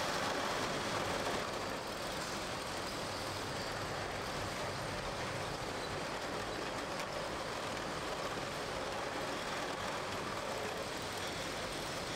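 Steady machinery noise of a bottling line, its conveyors running and carrying crates of bottles, with a few faint clicks and a slight drop in level about two seconds in.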